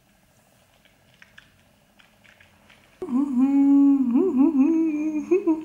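A woman humming with her lips shut on a mouthful of oil, starting about three seconds in after near silence with a few faint ticks; the hum is loud and its pitch wanders up and down.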